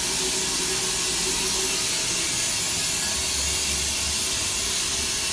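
Water running continuously with a steady, loud hiss that does not let up; the water has been running non-stop for no clear reason.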